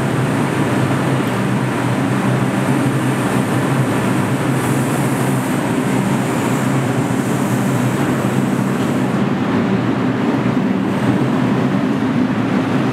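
New York City subway train at an underground station platform, a steady low hum with even rumbling noise, as the train closes up and starts to move off in the second half.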